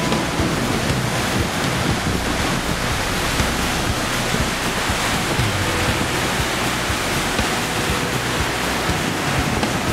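Steady rushing noise of a tidal bore's waves breaking as it travels up the river, mixed with wind buffeting the microphone.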